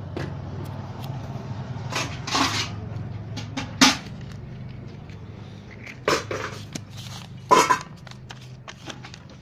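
Paper and booklet handling on a table: a ration card and register pages being moved and flipped, with scattered clicks and knocks and a few short rustles, the sharpest near the middle and past halfway. A steady low hum lies underneath.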